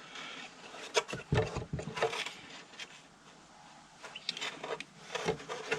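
Handling noises from the garden vacuum with its motor not running: scattered clicks, knocks and rustles as the housing is moved about.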